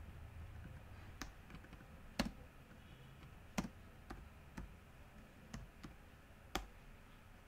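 Computer mouse and keyboard clicks while code is being selected and edited: about eight sharp clicks at uneven spacing, the loudest a little over two seconds in.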